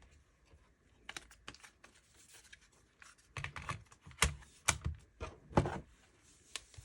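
Plastic clicks and knocks of a Dell Latitude laptop being handled and its battery pushed back in, with a cluster of louder knocks in the middle as it is fitted.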